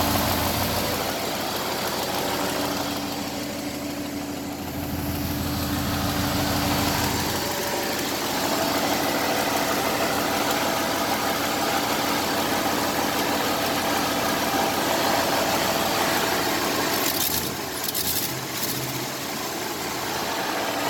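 GM truck V8 engine idling roughly just after being freed from a seizure caused by oil loss; its low note shifts a couple of times in the first seven seconds.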